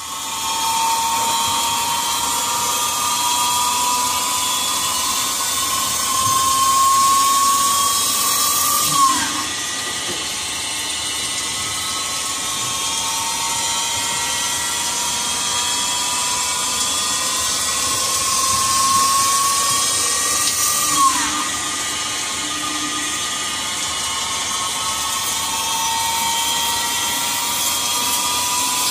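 Okuma LB-15 CNC lathe running with a steady high whine that slowly rises in pitch. The whine sweeps quickly and starts over about nine seconds in, and again about twenty-one seconds in.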